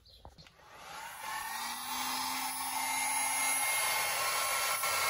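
Electric heat gun blowing steadily, fading in from about a second in, with a fan whine over the rush of air.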